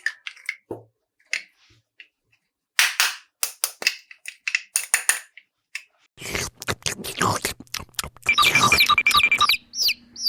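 Plastic toy pieces clicking, tapping and rattling as they are handled and unpacked, sparse at first and busier after about six seconds. Near the end comes a brief run of rapid electronic beeps.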